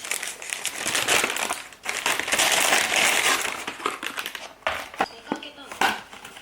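Crinkling and rustling of something being handled, in loud crackly runs with a short break just before two seconds in, then a few sharper separate crackles near the end.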